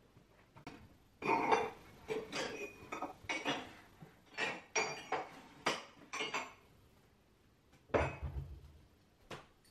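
Crockery and cutlery being handled in a kitchen: a quick run of about a dozen clinks and clatters over five seconds, some with a short ring. Then a duller thump near eight seconds and a light click.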